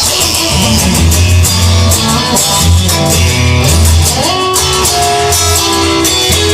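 Instrumental passage of a song played on guitar, with a bass line and a steady beat. A guitar note slides upward about four seconds in.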